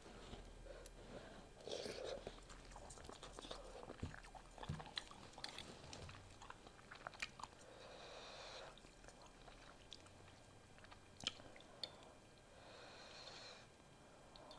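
Faint chewing of beef pho noodles, with scattered light clicks of a metal fork and spoon against a glass bowl.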